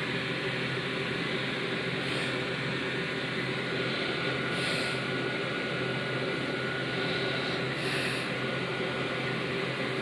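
Steady background hum and hiss with a faint high whine, and a few soft brief rustles about two, five and eight seconds in.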